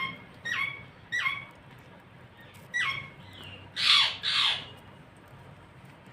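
Parrot calling: four short falling chirps in the first three seconds, then two loud, harsh squawks in quick succession about four seconds in.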